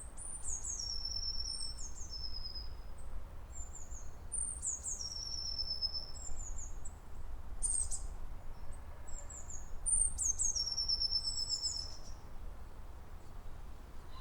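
A songbird singing high, thin phrases of falling whistled notes, three long phrases a few seconds apart with a short note between, over a steady low rumble.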